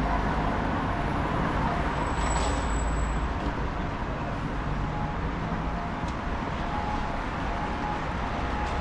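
City road traffic: a steady low rumble of passing cars and buses, heaviest in the first three seconds, then easing a little.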